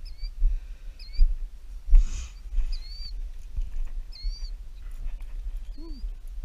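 A bird's short, high, rising chirps, about six spread over a few seconds, over a low rumble and uneven thumps of someone walking through grass with a handheld camera.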